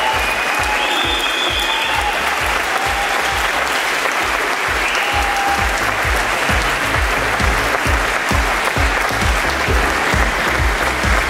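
A crowd of guests applauding steadily over music with a regular bass beat; a few held melody notes sound in the first two seconds.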